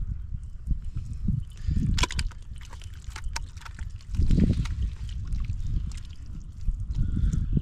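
Hands groping through shallow muddy water and mud, sloshing and squelching in irregular bursts, the heaviest about four seconds in.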